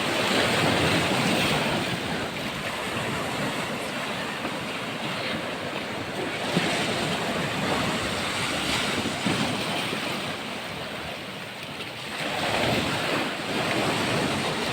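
Sea waves washing onto a rocky shore, rising and falling in slow surges, with some wind on the microphone.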